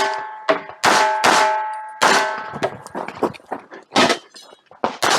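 A string of 9mm pistol shots from a Glock 45, unevenly spaced, about eight in all. Steel targets ring after several of the hits.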